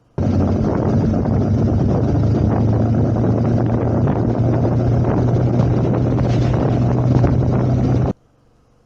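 Suzuki V-Strom 650 XT's 90-degree V-twin engine running steadily on the move, heavy with wind noise on the microphone. It is an action-camera sound sample that cuts in sharply and cuts off sharply after about eight seconds.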